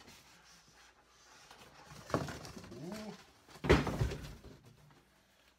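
Cardboard boxes being handled: a large boxed toy vehicle is slid out of its outer cardboard shipping box, with a short squeal that rises and falls about two seconds in. A loud thump follows at about three and a half seconds as the box is set down.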